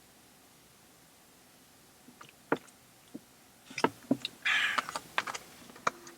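Handling noise: a scatter of sharp clicks and taps, with a short scraping rustle a little past the middle, as small plastic light parts are handled.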